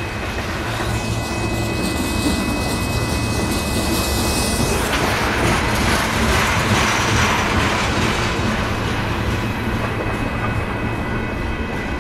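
Union Pacific manifest freight train rolling past: a steady rumble and rattle of tank cars and covered hoppers moving over the rails.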